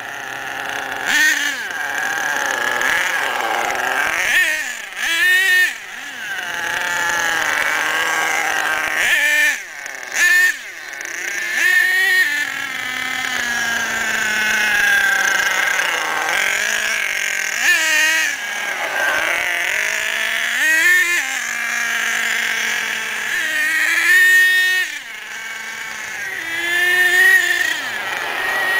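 HPI Savage X monster truck's F4.6 nitro engine, a small two-stroke glow engine, revving up and down over and over as the truck is driven in short bursts of throttle, dropping back briefly between them. The engine is being broken in, kept mostly off wide-open throttle.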